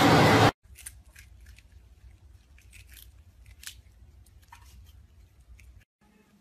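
Prairie dogs crunching and chewing crisp yellow snacks: a scatter of small, sharp crunches. A loud rushing noise cuts off suddenly about half a second in.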